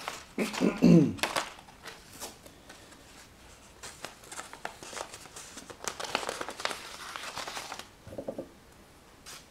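A wide paper strip rustling and crinkling as it is bent and twisted in the hands, with a run of small crackles over several seconds. A brief vocal sound from the man comes about a second in.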